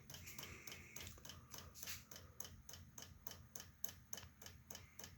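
Small 500 mm (19.5-inch) ceiling fan running with a faint, even ticking, about five ticks a second, over a low hum. It is underpowered, on 9.5 volts instead of 12, and not getting up to full speed, which the owner suspects is why it keeps hiccuping.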